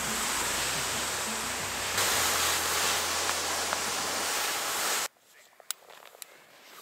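A loud, steady rushing hiss with music underneath cuts off suddenly about five seconds in. After that it is quiet, with a few crisp crunches of footsteps in snow.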